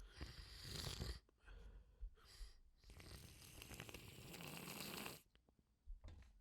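Wet, congested sniffling and breathing through a runny nose during a sneezing fit. There is a sniff of about a second, then a few short sniffs, then a longer breath lasting about two seconds midway, then one brief sniff near the end.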